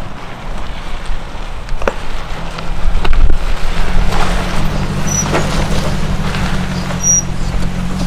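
An SUV's engine running as it drives slowly along a rocky dirt trail, with tyres crunching over gravel and a few sharp stone clicks. The engine hum grows louder about three seconds in as the vehicle comes closer.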